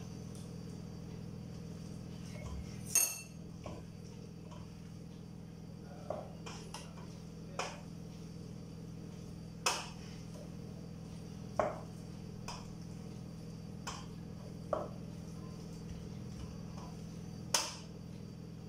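A spoon knocking and clinking against a cooking pot about every two seconds during stirring, over a steady low hum.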